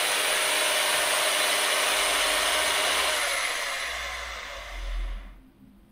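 Electric drill spinning a car speed sensor's shaft, running steadily with a whine, then slowing down and stopping about five seconds in.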